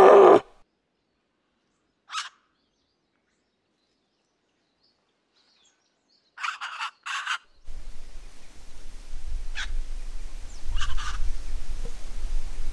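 The end of a red deer stag's rutting roar, cutting off about half a second in. It is followed by quiet broken by a few short bird calls, then from about eight seconds in a steady low outdoor rumble with more scattered bird calls.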